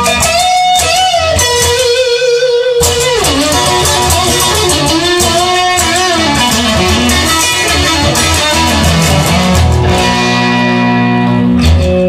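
Recorded rock music: an electric guitar plays a lead line with bending notes over low bass notes.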